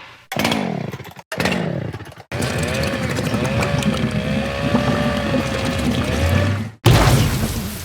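A string of separate cartoon sound effects. Two short sounds fall in pitch, then comes a long buzzing, motor-like sound with a wavering whine over it. Near the end, a sudden noisy crash-like burst fades away.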